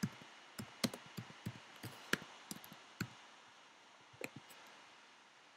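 Typing on a computer keyboard: a run of irregular key clicks for about three seconds, then a couple more taps a little after four seconds in.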